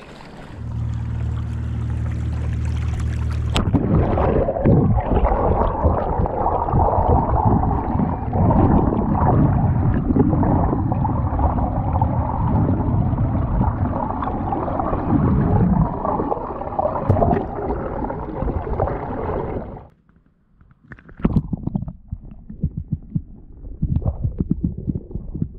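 Muffled, gurgling rush of water heard through an underwater camera as the kayak moves along, busy and uneven. It follows a steady low hum in the first few seconds, and near the end it breaks off suddenly into scattered bubbly knocks.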